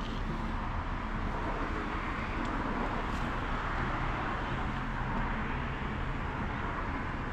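Road traffic noise: a steady rush of passing cars, swelling slightly in the middle, with a low hum underneath.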